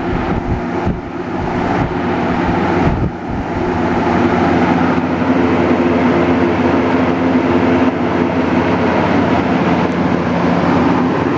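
Edison Comfort Fan box fan (model 204016, variable-speed) running on its highest setting: a steady rush of moving air over a low motor hum. It wavers a little in the first few seconds, then holds even.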